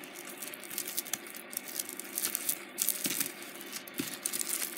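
A tangle of costume jewelry handled and pulled apart: glass seed beads, metal chains and stones clicking and rattling against each other in a quick, irregular run of small clicks.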